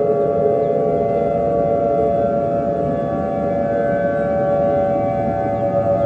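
Civil defense siren sounding one long, steady wail that slowly rises in pitch, over a noisy low rumble.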